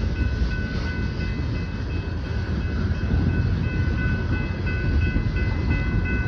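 Freight train of tank cars rolling past at a grade crossing with a steady low rumble. Over it a repeated high ringing sounds, typical of the crossing bell.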